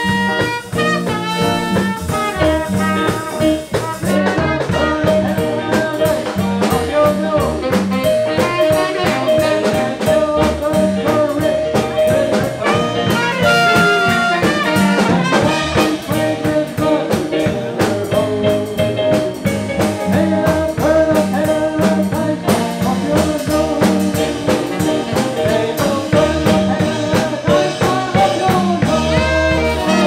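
Live jazz band playing: trumpet and saxophone carrying the melody over drum kit, keyboard and guitar, with a steady swing beat.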